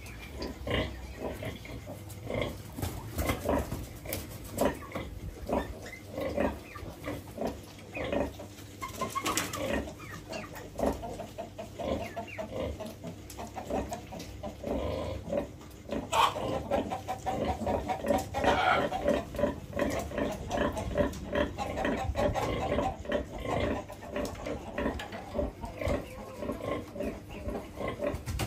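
Piglets grunting and squealing in a continuous string of short, irregular calls as they jostle to suckle, with louder squeals about a third of the way in and again past halfway.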